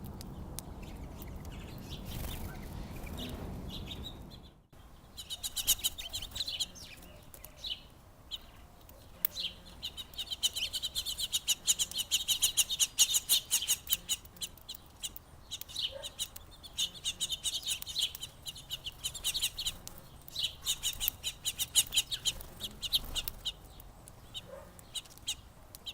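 Small songbirds chirping in quick, dense runs of short chirps. Before the chirping, a low background rumble cuts off suddenly about five seconds in.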